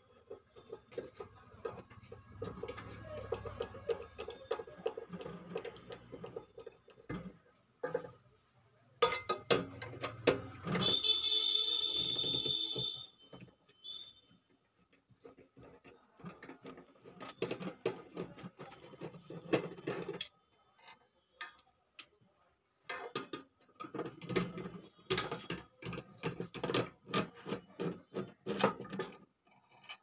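Screwdriver working the mounting screws of a microwave oven magnetron, with irregular metallic clicks, scrapes and rattles in several bursts separated by short pauses. A brief high squeal comes about eleven seconds in.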